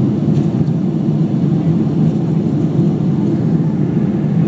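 Steady cabin noise of a jet airliner climbing after take-off: the engines and rushing air form an even, deep drone.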